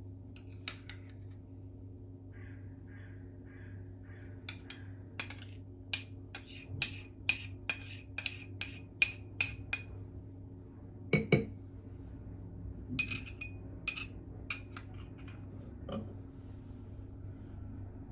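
Glass and dishware clinking: a quick run of sharp clinks, about two a second, then two heavier knocks and a few more clinks, over a steady low hum.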